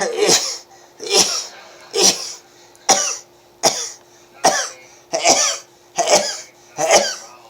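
A person sneezing in a rapid run of nine sneezes, about one a second, each a short sharp burst.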